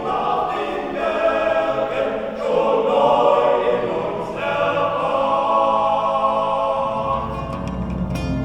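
A choir singing long, held notes in several voices, with chords changing every second or so.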